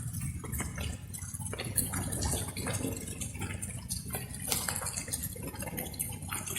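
Light rain: water drops dripping and splashing irregularly, over a steady low rumble.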